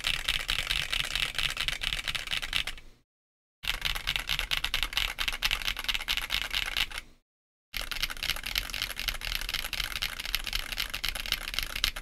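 Fast typing on a Monsgeek M1W mechanical keyboard with Akko Piano V3 Pro switches and PBT OEM keycaps, its case dampened with Tempest tape and polyfill: a dense run of key clacks in three stretches, broken twice by a brief dead silence about three and seven seconds in.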